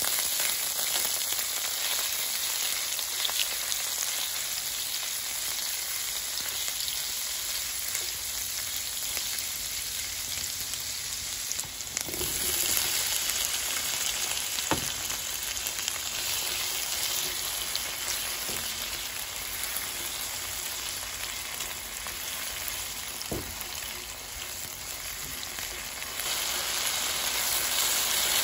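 Diced garlic, onion and tomato sizzling in hot oil in a non-stick wok as they are sautéed and stirred with a silicone spatula: a steady frying hiss with a few sharp clicks from the stirring. The sizzle grows louder about twelve seconds in.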